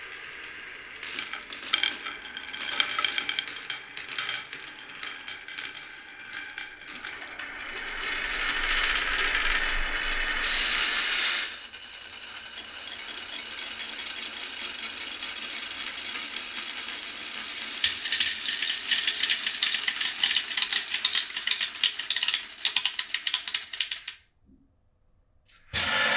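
Marbles rolling and clattering down a wooden marble run, a steady rolling hiss broken by many small clicks and knocks as they hit rails, blocks and chutes. The clatter is heaviest in the second half, then stops almost completely for a moment before starting again near the end.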